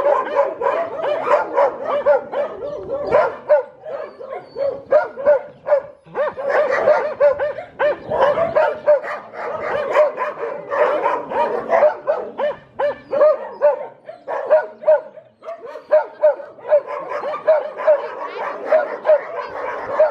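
Several dogs barking over one another, a constant run of short barks with no let-up.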